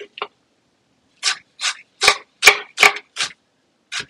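Knife chopping red onion on a wooden cutting board: a run of sharp single chops, about three a second, after a short pause near the start.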